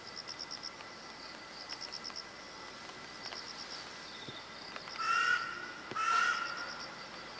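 A crow cawing twice, about a second apart, with each caw harsh and short. Under it, insects chirp in short, rapid, high-pitched pulse trains that repeat every second and a half or so.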